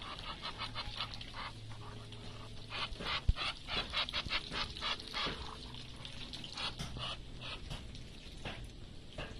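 Muscovy ducks dabbling and feeding in shallow water and a dish, a rapid run of wet bill clicks and slurps that is busiest a few seconds in. A single sharp knock about three seconds in.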